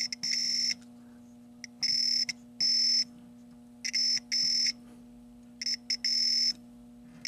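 Logic probe beeping in a run of short, irregular high-pitched bleeps as its tip is touched to connector pins; the tone marks a pulsing signal on the line being probed. A steady low hum runs underneath.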